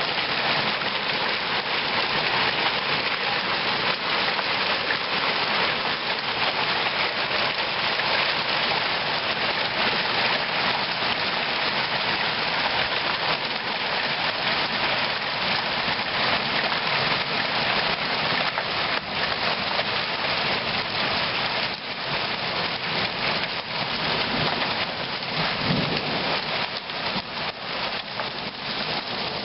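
Hail pelting down in a dense, steady clatter, with sharper individual strikes standing out near the end.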